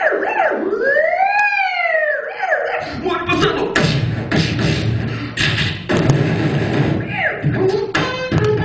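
A man imitating a police-film soundtrack with his mouth, beatbox-style: a pitched wail that rises and falls about a second in, then a run of quick percussive mouth noises and hissing bursts.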